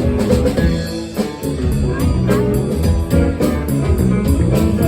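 Live blues band playing an instrumental passage, with electric guitar over bass and drum kit.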